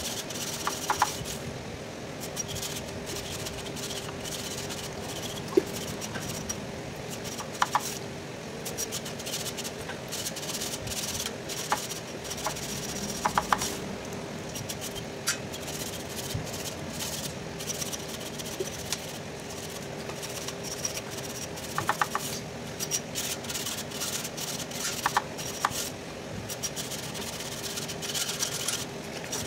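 Thin metal pick scraping and clicking against the tube slots of a truck radiator header, giving irregular light metallic ticks and rubbing, over a steady low hum.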